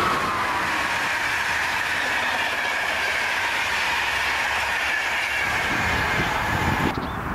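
Passenger coaches of an express train behind a Siemens Vectron electric locomotive rushing past at speed. The wheels on the rail give a steady rolling noise with a high singing tone, which drops slightly just at the start and cuts off suddenly near the end.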